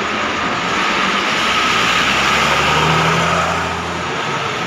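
Hino diesel coach engine running as the bus moves off past at close range, over a steady hiss of rain. The engine sound swells to its loudest about three seconds in and falls away about a second later.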